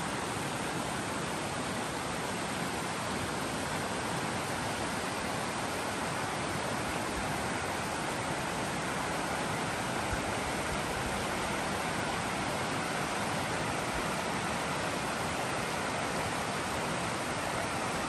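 Mountain creek rushing over rocks and small rapids: a steady, even rush of running water.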